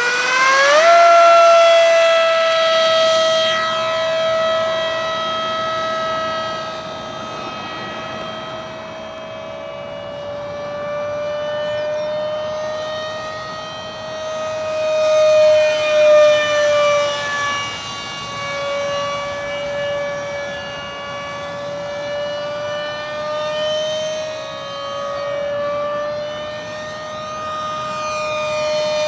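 The 50 mm electric ducted fan of a small RC A-4 Skyhawk jet spooling up to a high, steady whine within the first second, then holding as the jet flies. The whine's pitch and loudness swell and dip as the jet comes and goes, loudest about halfway through.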